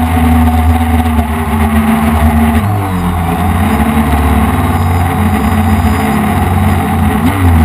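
F450 quadcopter's four electric motors and propellers buzzing loudly in flight. The pitch shifts about three seconds in and again briefly near the end as the motor speeds change.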